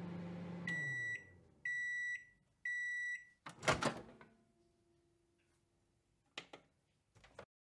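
Microwave oven finishing its cycle: the running hum winds down and falls in pitch, then three high beeps about a second apart. A loud short clunk follows, then a couple of faint clicks near the end.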